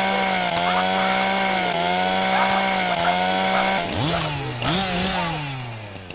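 Two-stroke chainsaw running at a high, steady pitch with slight dips every second or so. About four seconds in, its revs drop, flare up twice, then sink away and the engine dies out near the end.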